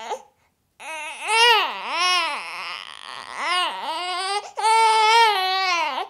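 Baby whining: fussy, wavering cries that rise and fall in pitch, starting about a second in after a brief pause and ending in a longer held wail.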